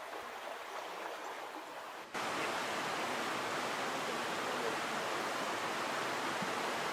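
Steady rush of flowing river water, fairly soft at first, then jumping louder about two seconds in and holding even.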